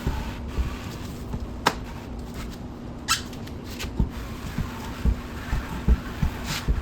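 Pressure washer hose being reeled in on a Coxreels hose reel: irregular knocks and clunks from the reel and hose, with three short squeaks as the hose rubs through a wet towel.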